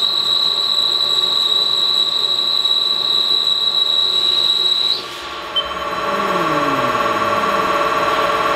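Haas TL CNC lathe cutting the outside contour of a steel rifle barrel blank, giving a steady high-pitched whine. About five seconds in the whine stops and gives way to a lower hum with tones slowly falling in pitch.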